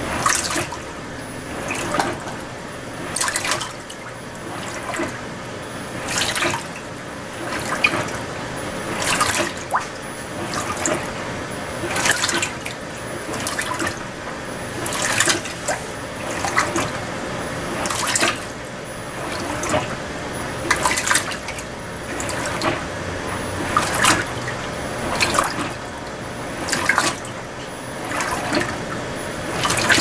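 Electrolux Direct Drive LTM16 top-load washer agitating a full tub of rinse water on its delicate program. The water sloshes and swishes in even surges about every second and a half, as the agitator drives the clothes back and forth.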